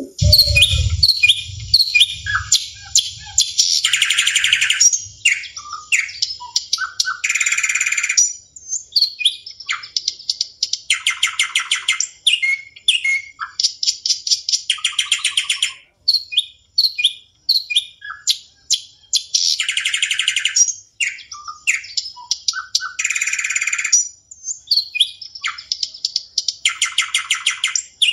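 Recorded birdsong: many birds chirping and twittering, with a fast trill coming in every three to four seconds. A few low thuds sound near the start.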